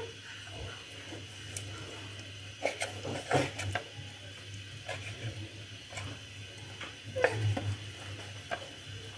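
Kitchen knife slicing through raw chicken breast on a wooden cutting board, with scattered light taps and scrapes of the blade on the board over a low steady hum.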